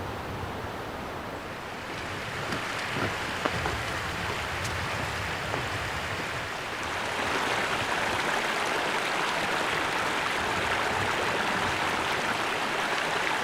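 Steady rush of flowing water, like a mountain stream, growing louder about seven seconds in, with a few faint ticks.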